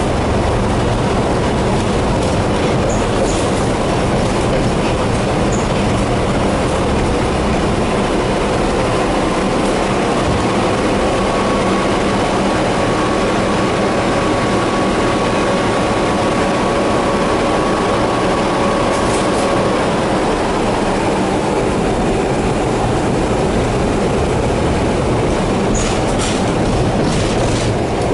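Tatra tram running on its rails, heard on board: a steady rumble of wheels and running gear, with a steady whine from about ten to twenty seconds in and a few clicks near the end.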